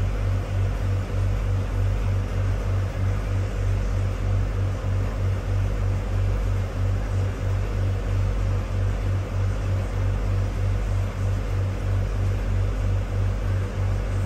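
Boat engine running steadily while the launch cruises, heard from inside the cabin: a low drone that throbs evenly a few times a second.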